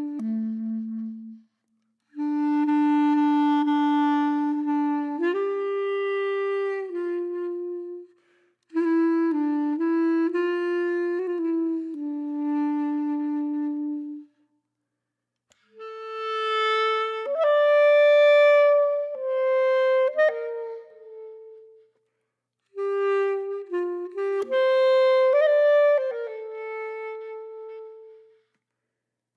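Background music: a single-voiced melody in a wind-instrument timbre, played in short phrases with brief silent gaps between them.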